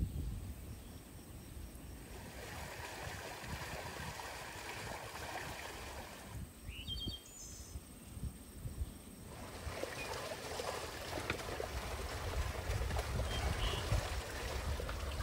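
Flowing water from a stone spring, a steady rushing. It drops away briefly near the middle, where a bird chirps a few times, then returns and grows louder toward the end as the water pours from the spout onto a colander of nettles.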